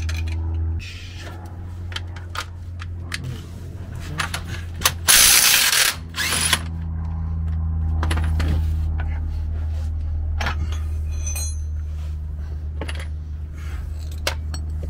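Ratchet wrench clicking in quick runs as a bolt on the Jeep's transfer case and skid plate is tightened, over a steady low hum. A loud hissing burst cuts in about five seconds in and lasts about a second and a half.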